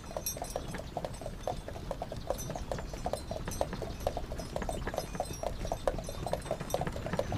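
Horses' hooves clip-clopping at a walk, a steady run of several hoofbeats a second.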